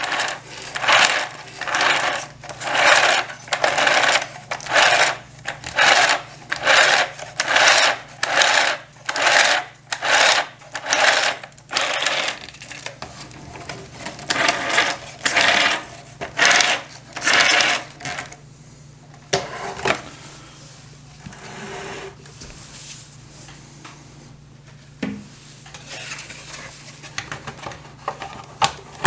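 The 3D-printed gear train of an RC T-34/85 tank, driven by a 2205 brushless motor, whirring and rattling in short repeated bursts at a bit more than one a second as it is run on a test. After about 18 seconds it goes quieter, with only scattered clicks and a faint steady hum.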